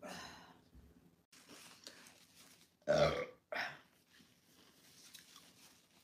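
A woman burping: a loud belch about three seconds in, followed straight away by a shorter one.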